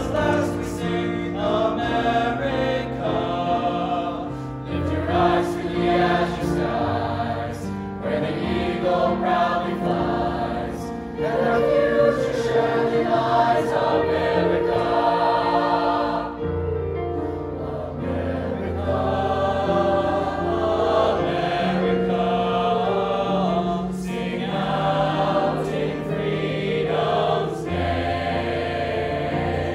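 A mixed-voice high school choir singing together, holding long notes.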